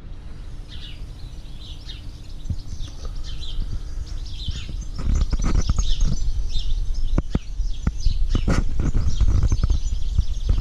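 Birds chirping: short high calls repeated about once a second. A low rumble and scattered clicks on the microphone grow louder from about halfway through.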